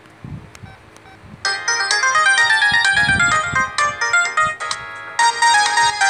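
Ringtone from an LG KD3500 playing through the small speaker of an LG CU500 phone. After a short pause it starts about a second and a half in as a bright electronic melody of quick stepping notes, and it gets louder about five seconds in.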